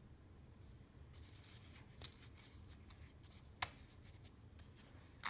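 Hands handling small gold coins and their holders: light rubbing with a few sharp clicks, the loudest about two thirds of the way in.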